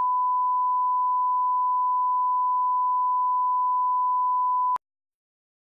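Steady 1 kHz line-up test tone of a bars-and-tone leader, a single pure pitch held at a constant level, cutting off abruptly about five seconds in.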